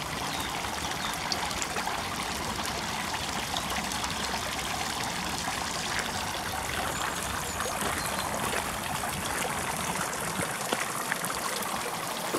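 Water trickling steadily from the tiers of a stone garden fountain into its basin.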